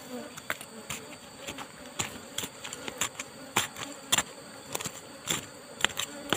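Asian honeybees (Apis cerana) buzzing around their opened nest, mixed with irregular clicks and scrapes of soil and small stones being pried and scraped away by hand.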